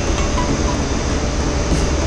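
Steady, loud machinery noise of a ship's engine room: a dense, even roar over a strong low drone, with no pauses or changes.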